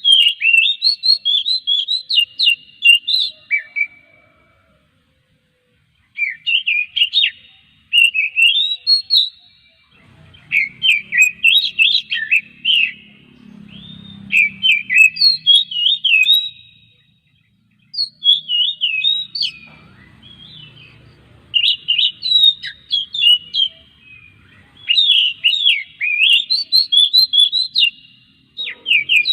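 Oriental magpie-robin (kacer) singing in about six bouts of quick, varied whistled phrases, each a few seconds long, with short pauses between them.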